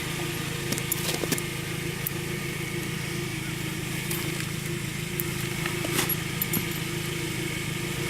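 Chevrolet Tracker's engine idling steadily, with a few scattered sharp clicks of tire chain links and tensioner hooks being handled.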